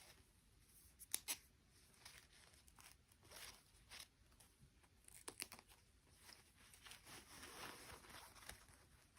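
Faint handling noises of a toy and its plastic packaging: a few soft clicks, a couple of them about a second in and again about five seconds in, and a stretch of crinkling near the end.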